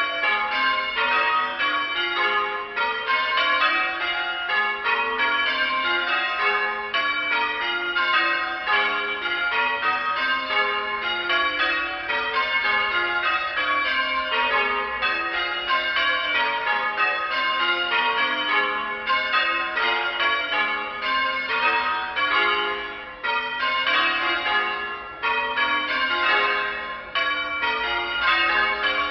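Church bells being rung in changes by a band of ringers: a steady, unbroken stream of strikes, the bells sounding one after another in a constantly shifting order.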